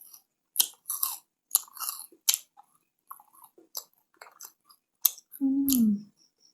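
Close-miked crunching and chewing of a crunchy sweet, with several loud bites and crunches early and softer wet mouth clicks after. A short hummed 'mmm' with falling pitch comes about five seconds in.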